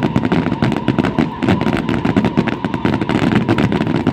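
Aerial fireworks in a dense barrage: rapid, overlapping booms and crackling bangs, several a second without a break.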